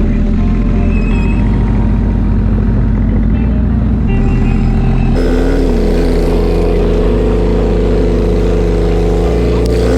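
Loud background music with a heavy bass line that steps from note to note, over the running of a motor vehicle engine. The music changes abruptly about five seconds in.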